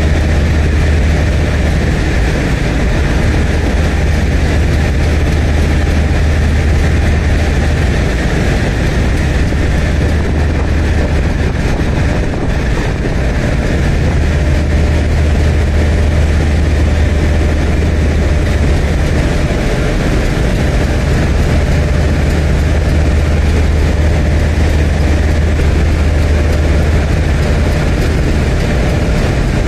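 DF11G diesel locomotive idling with a steady low hum, while passenger cars roll slowly past on the neighbouring track. The hum eases briefly about twelve seconds in.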